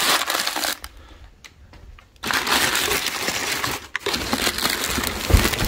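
Crumpled brown packing paper rustling and crinkling as a hand digs through it in a cardboard box, with a short lull about a second in.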